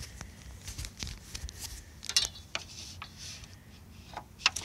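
Hands working a fitting open at the front of the truck: scattered small clicks and rustling, with sharper clicks about two seconds in and again near the end.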